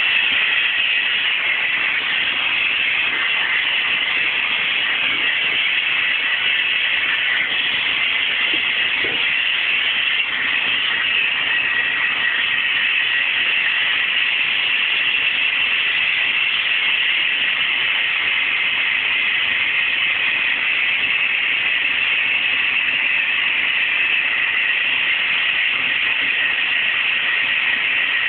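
Vacuum cleaner running steadily: a constant rushing hiss of suction air with a faint low motor hum underneath.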